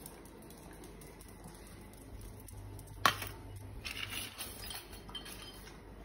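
Clinking and rattling at a stainless-steel dog bowl as a small dog eats from it: one sharp clink about halfway through, then scattered clinks for a couple of seconds.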